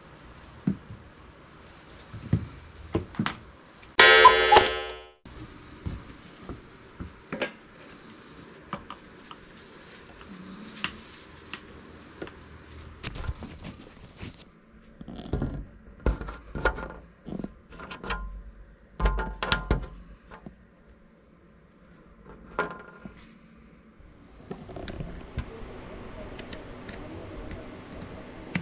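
Scattered knocks and metallic clinks from handling an aluminium motorcycle silencer and its mounting parts. About four seconds in comes one loud bright ringing tone, about a second long.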